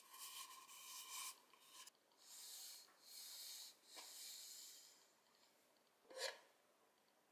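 Faint rubbing of a hand and fingers over the smooth wood of a bent-wood magewappa bento box, in several soft strokes, with a light knock of the wood about six seconds in.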